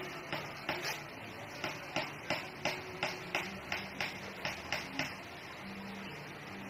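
Rice being washed by hand in an aluminium pot of water: short rhythmic scrubbing swishes about three times a second that stop about five seconds in.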